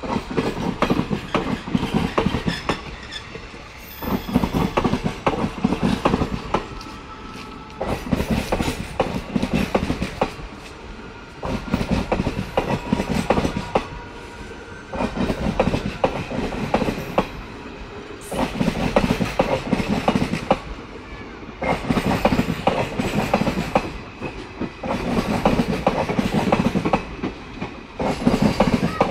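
Indian Railways passenger coaches rolling past at low speed, their wheels clattering over the rail joints, with a loud burst of clatter about every three and a half seconds as each coach's bogies pass.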